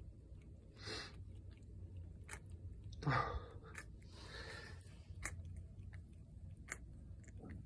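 Faint wet mouth sounds and small clicks from a mother cat and her newborn kittens nestled at her belly, with soft rustles and a louder bump about three seconds in.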